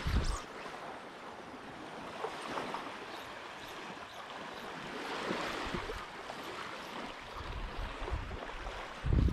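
Small waves lapping on a sandy shoreline, a steady hiss of water. Wind buffets the microphone at the start and again near the end.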